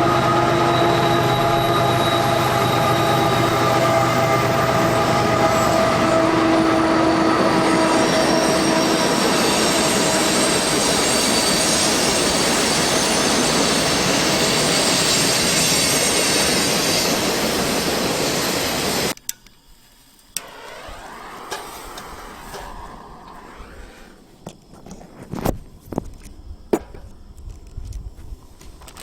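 A train passing close by: a loud steady rumble with several high, held squealing tones from the wheels on the rails. It cuts off abruptly about two-thirds of the way through, leaving a quiet background with scattered clicks and pops.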